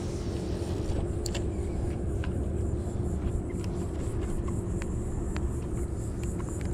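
A boat motor running steadily: a low rumble with a constant hum, and scattered light clicks and taps.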